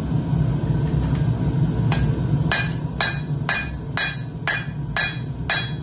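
Hand hammer striking steel on an anvil, about two ringing blows a second that start a couple of seconds in. Under them runs the steady roar of a propane forge.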